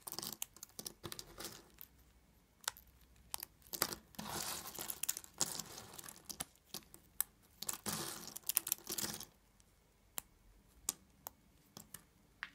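Thin, hard plates of laundry soap snapped and crumbled between fingers. Crisp snaps with stretches of dense crackling in the middle, thinning to a few single snaps near the end.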